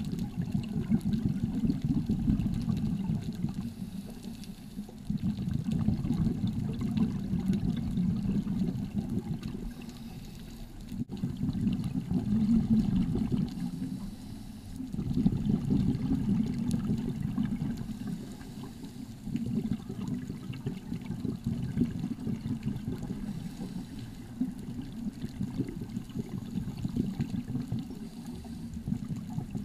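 Muffled underwater rushing of water, heard through an underwater camera, swelling and fading every few seconds, with a brief dropout about eleven seconds in.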